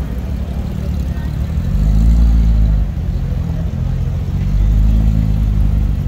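A car engine running with a deep exhaust rumble, revved up and held twice: about two seconds in and again about four and a half seconds in.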